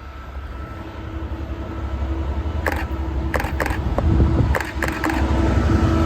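Train approaching, its low rumble and hum growing steadily louder, with a handful of sharp clicks about halfway through.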